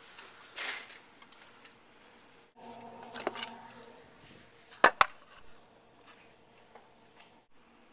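Cans and bottles knocked and shifted while someone rummages through a refrigerator, with scattered rustles and two sharp clinks close together about five seconds in.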